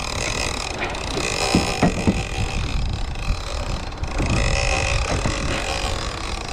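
Big-game fishing reel whirring in two stretches, about a second in and again about four seconds in, with a few sharp clicks, while the rod is loaded by a hooked striped marlin. Wind buffets the microphone and water washes against the hull underneath.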